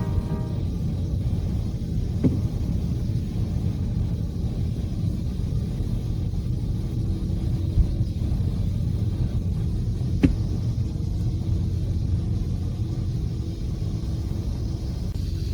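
Steady low rumble of a ferry's engines as the ship comes into port. A faint steady hum joins partway through, and two short sharp knocks come about two and ten seconds in.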